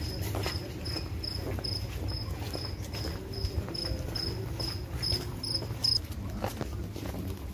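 A cricket chirping steadily, about two and a half high chirps a second, stopping suddenly about six seconds in. Soft footsteps and a low rumble sit under it.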